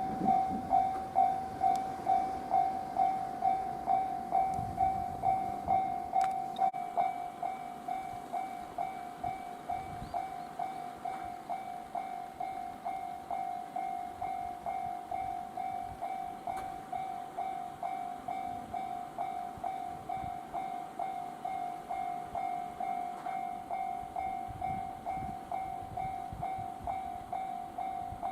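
A railway level crossing alarm ringing: one electronic bell tone struck steadily about twice a second. It is louder for the first several seconds, then a little softer.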